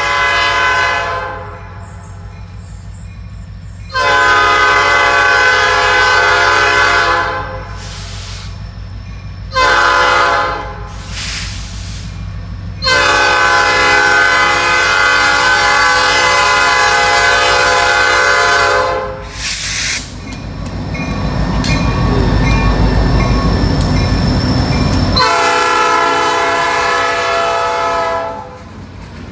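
Diesel freight locomotive's multi-chime air horn blowing the grade-crossing signal: the tail of one long blast, then a long, a short and a long. The lead unit is an SD40-2 with a GP15-1 trailing. Then the locomotives' diesel engines rumble by close, growing louder, and the horn gives one more long blast near the end.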